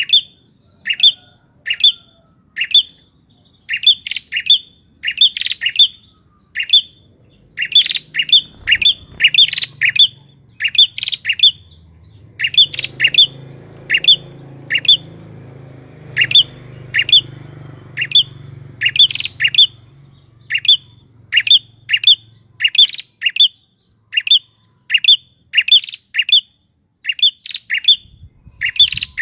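Male prenjak (prinia) calling vigorously: short, loud calls repeated over and over, in quick runs of one to four. A faint low hum comes in about a quarter of the way through and fades out well before the end.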